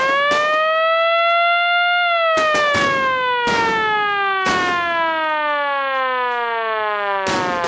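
Siren tone of an emergency alert alarm, rising for about two seconds and then falling slowly, cut through by sharp crackling hits every second or so.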